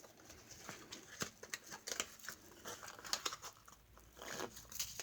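Faint rustling and crinkling of cube packaging being handled and opened, with irregular small clicks and taps.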